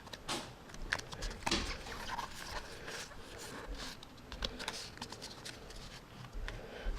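Pokémon trading cards being handled: quiet, irregular rustling and small clicks as the cards slide against each other and the stack is sorted.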